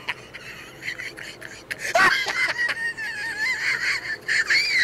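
A very high-pitched, wavering, laugh-like squeal from a voice, starting about two seconds in and carrying on almost unbroken.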